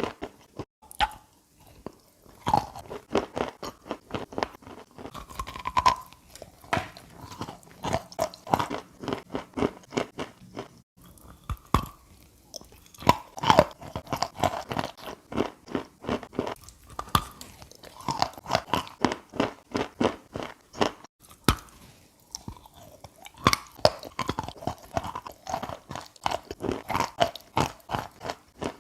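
Chalk coated in chalk paste being bitten and chewed: dense runs of sharp crunches and crackles, broken by short pauses twice.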